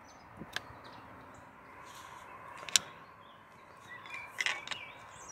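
A few sharp metallic clicks and taps from a metal tool working on the OMC sterndrive's transom mounting, the loudest a single crisp click about three seconds in and a quick cluster near the end. Faint bird chirps in the background.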